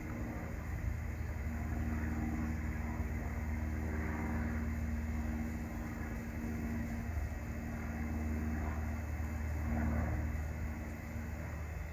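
Cessna 172G Skyhawk's six-cylinder Continental O-300 engine and propeller droning steadily under climb power after takeoff, the pitch shifting slightly partway through.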